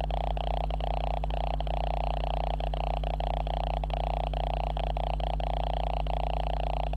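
Steady electronic buzz and hum from a faulty camera recording its own noise, loud enough to cover the room sound, broken by frequent brief dropouts.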